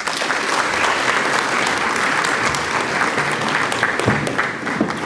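Audience applauding: many hands clapping at once, starting straight away and fading near the end.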